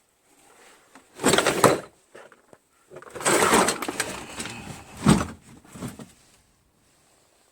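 Stored items and parts being shifted and rummaged through, clattering and scraping: a short burst about a second in, then a longer spell of knocks and rattling from about three to six seconds.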